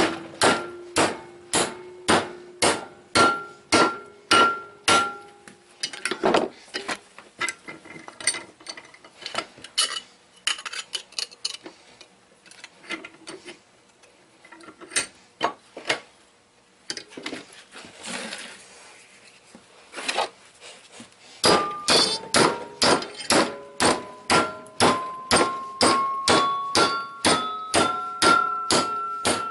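Hammer blows on an aluminum hard drive platter over a steel bench vise, each strike ringing with a metallic tone, at about two a second. Midway the blows thin out to a few scattered strikes. Near the end comes a fast run of blows whose ringing rises in pitch with each hit as the platter is beaten out of shape.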